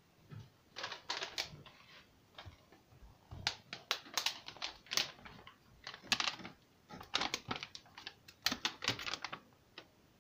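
Plastic Whiskas cat-food bag being handled and crinkled, in several bursts of sharp crackling. This is the familiar rustle of food coming out for a cat.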